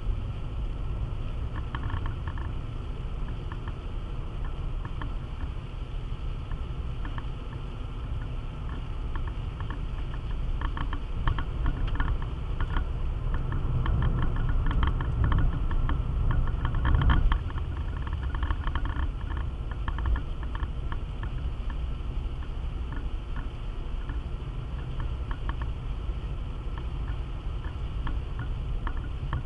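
Car cabin noise while driving in rain: a steady low rumble of engine and tyres on wet tarmac, with a scatter of light ticks from rain on the windscreen. It grows louder around the middle and drops back suddenly a little past halfway.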